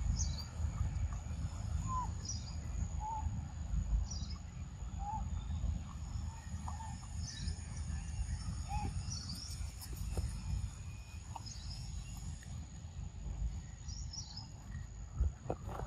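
Outdoor ambience: a bird repeats a short high chirp every second or two, with a few scattered lower bird notes, over a low rumble and a steady high thin whine.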